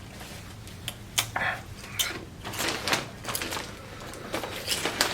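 Irregular crisp crackles and clicks from eating Paqui tortilla chips.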